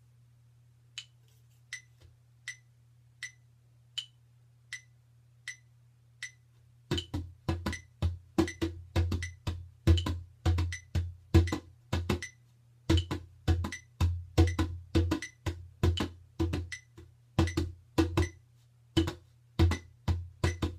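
A metronome clicks steadily, about 80 beats a minute, alone for the first six seconds. Then a synthetic-head djembe comes in, played by hand in a repeating rhythm of deep strokes over the clicks, with two brief pauses.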